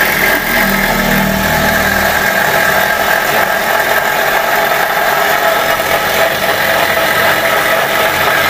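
Homemade bench grinder running steadily: a salvaged washing machine motor belt-driving two grinding wheels, a continuous even whir and hum at full speed.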